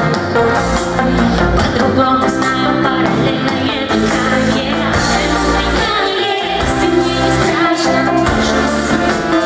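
Live pop song: a band with keyboards playing a steady beat while a woman sings lead into a microphone.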